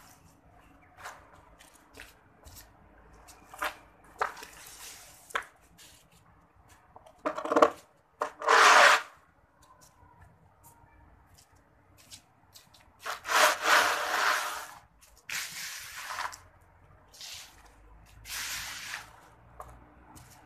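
Scraping and rustling of fallen leaves and small fruits being pushed across a concrete floor into a long-handled dustpan, in irregular bursts, the loudest about eight seconds in and again around thirteen to fifteen seconds.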